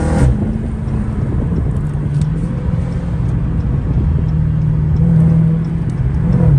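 Dodge Charger Hellcat's supercharged 6.2-litre V8 running at a steady cruise, a low even drone that swells slightly about four to five seconds in.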